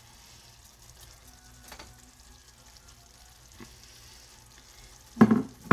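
Faint sizzle of a pan of ground beef and vegetables, with light scraping as cooked rice is spooned out of a pot into it. Near the end come two loud knocks of cookware, about half a second apart.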